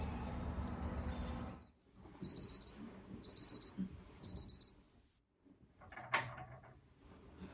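Electronic wake-up alarm beeping: high-pitched bursts of rapid beeps about once a second, faint at first, then three loud groups of four beeps each, stopping after about five seconds. A single short knock follows about a second later.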